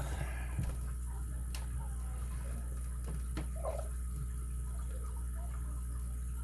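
Lock pick and tension tool working inside an American AC20 steel-ball padlock: faint scraping with a few small clicks, over a steady low hum.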